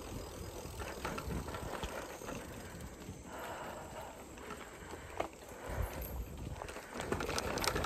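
Bicycle ridden over a bumpy dirt trail: tyres rolling on dirt and leaf litter, and the bike rattling with scattered clicks and knocks over the bumps, over a low rumble.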